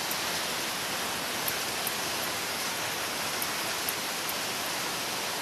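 Steady rain falling on wet ground and puddles, an even hiss, with a few faint ticks.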